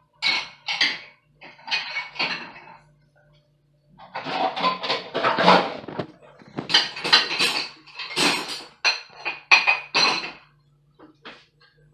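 Bowls and dishes clattering as they are handled and set into a dishwasher's bottom rack: a few knocks and clinks, a short pause, then a busy run of clattering. A low steady hum runs underneath.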